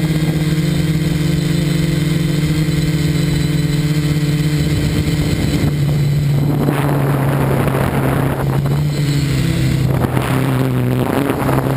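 Electric motors and propellers of a multirotor drone heard from the camera on its frame: a steady buzzing hum that drops slightly in pitch about six seconds in. A rushing noise joins from about six to ten seconds in.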